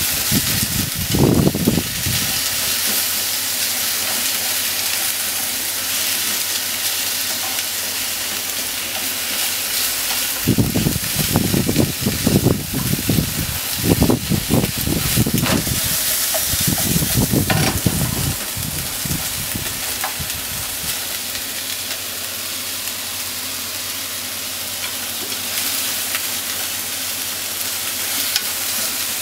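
Thin-sliced pork and onion sizzling in a frying pan while being stirred with wooden chopsticks. The food scrapes and clatters against the pan in bursts, once about a second in and again for several seconds through the middle.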